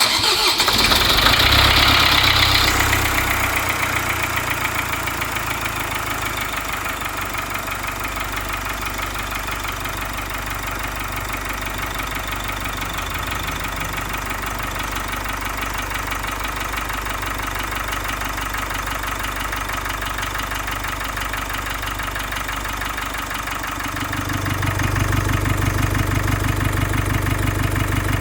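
Range Rover Velar's engine running at idle with a fast, even ticking pattern, the weird sound the owner is showing. It is louder for the first few seconds, and near the end a deeper drone comes in and the sound grows louder.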